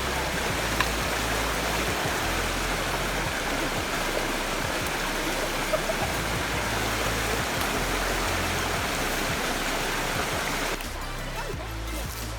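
Waterfall's rushing water, a steady dense hiss of noise, with background music and its stepping bass line underneath. Near the end the water sound drops away sharply, leaving the music.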